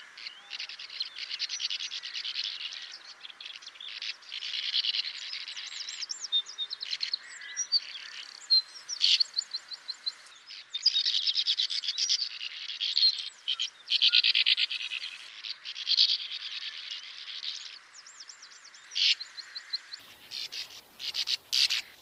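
Sand martins (bank swallows, Riparia riparia) twittering: a continuous chatter of many overlapping, rapidly ticking calls, which thins to sparser calls near the end.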